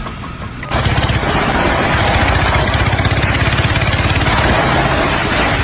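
An engine running steadily with a fast, even pulsing beat, cutting in abruptly about a second in.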